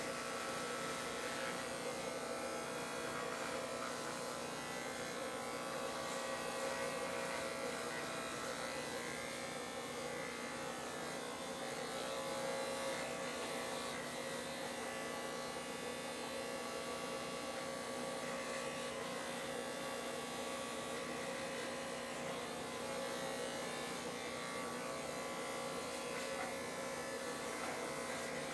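Corded electric hair clippers running with a steady buzz as they are worked over the scalp, shaving the head down to stubble.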